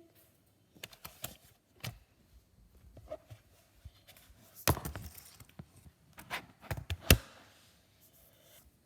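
Scattered knocks and clinks of kitchen items being handled, about half a dozen, the loudest about five and seven seconds in.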